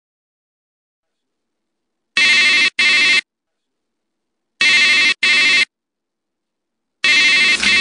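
Telephone ringing in the double-ring pattern: three rings of two short bursts each, about two and a half seconds apart, starting about two seconds in.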